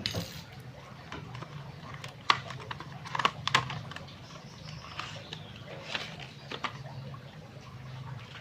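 Scattered small clicks and taps, irregular and close to the microphone, with the loudest cluster a couple of seconds in, as a phone battery's plastic packaging is handled and opened.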